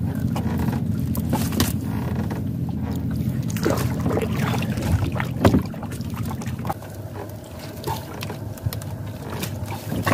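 Gill net being hauled by hand over the side of a small boat: wet mesh dragging over the gunwale, water splashing and dripping, and a few sharp knocks against the hull, the loudest about five and a half seconds in. Under it runs a steady low engine hum that fades about two-thirds of the way through.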